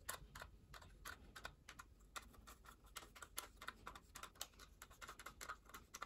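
Faint, irregular small clicks and ticks, several a second, of a screwdriver turning a small screw through a metal drive bracket into the side of a 2.5-inch SSD.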